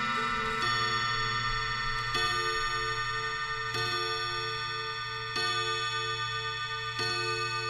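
Mantle clock striking the hour on its chime rods: one low ringing strike about every second and a half, five in a row, each ringing on under the next.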